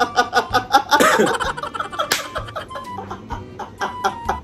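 A man laughing hard in rapid 'ha-ha' pulses, about four or five a second, loudest at first and tapering off after a couple of seconds, with a sharp click partway through.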